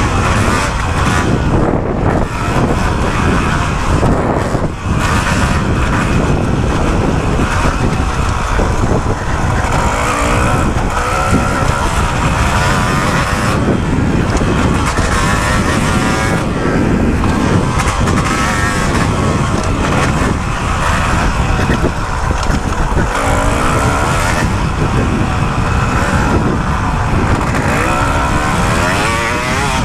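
Kawasaki KX250 dirt bike engine revving hard and easing off again and again as it is ridden, heard from on board the bike.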